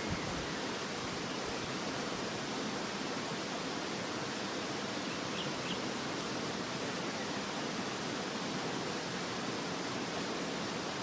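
Steady rushing of running river water, with a few faint short high chirps near the middle and end.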